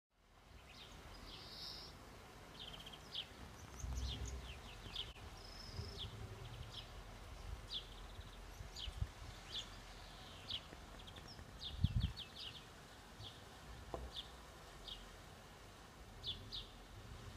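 Small birds chirping in short, repeated high calls over a low outdoor rumble, with a dull low thump about twelve seconds in.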